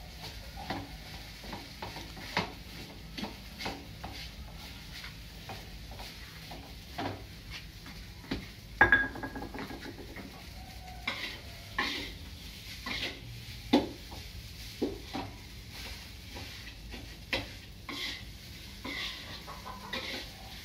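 A spatula scraping and knocking irregularly against a wok as fried rice is stir-fried, with a sizzle underneath. A sharper clank comes about nine seconds in, and another near fourteen seconds.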